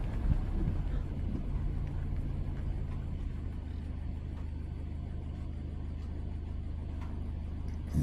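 Car engine running with a steady low hum.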